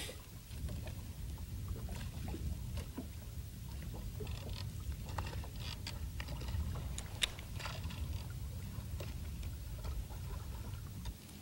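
Steady low rumble of wind and the boat on open water, with scattered faint clicks and rustles, most of them between about four and eight seconds in, as a baitcasting reel is slowly wound and the rod worked.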